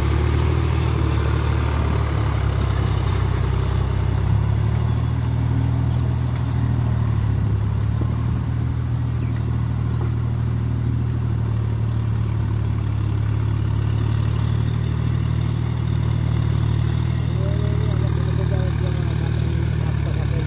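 John Deere tractor's diesel engine running steadily under load as it works a wet, muddy field on cage wheels.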